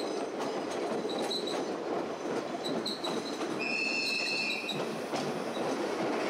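A train running on its rails with a steady rumble. Its wheels squeal faintly about a second in and again near three seconds, then give a stronger, higher squeal of several tones lasting about a second, around four seconds in.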